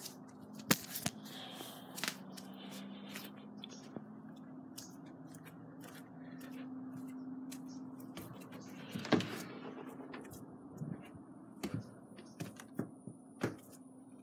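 Scattered knocks, clicks and scrapes of things being handled around a wooden shed doorway, with one louder knock about nine seconds in, over a steady low hum.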